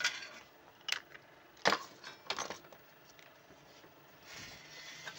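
Several sharp clicks and knocks of hard objects being handled on a workbench, the loudest a little under two seconds in, then a brief soft rustle near the end.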